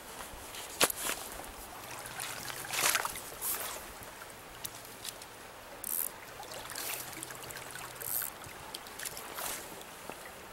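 Shallow trout stream flowing steadily around a wading angler, with a sharp click about a second in and several short swishing noises scattered through.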